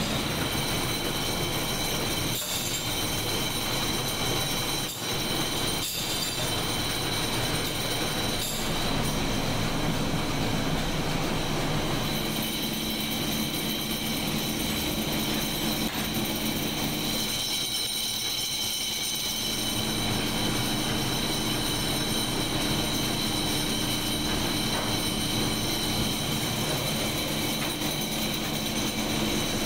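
Factory machinery running steadily, a dense mechanical din with several high whining tones held throughout and a few sharp clicks in the first nine seconds.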